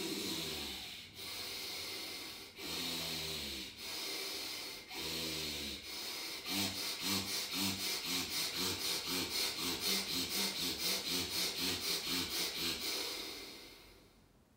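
Forceful breathing in and out through the right nostril with the left nostril held shut: Surya Bhastrika, the bellows breath. It starts with slow, deep breaths about one a second, then speeds up to rapid, even pumping at about three breaths a second, which fades out near the end.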